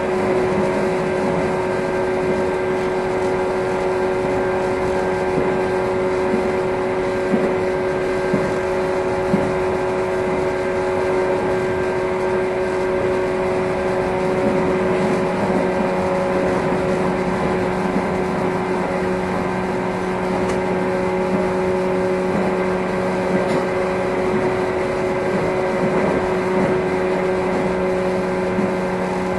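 Running sound inside a JR 115 series EMU motor car (KuMoHa 115-302): steady traction-motor and gear whine over wheel-on-rail noise, with a few light clicks about a third of the way in.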